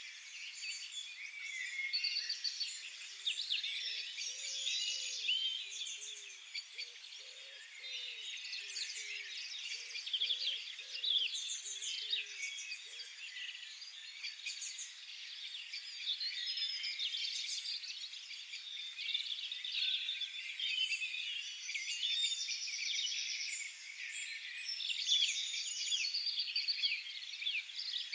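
A dense chorus of many small songbirds singing at once: overlapping chirps, trills and twitters with no single bird standing out. Very faint low repeated notes sit beneath it for the first half.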